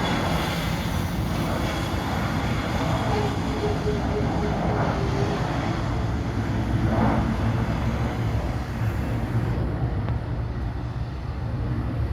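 Airbus A320 just after landing: a steady low rumble of the jet rolling on the ground, with a faint held tone for a couple of seconds a few seconds in.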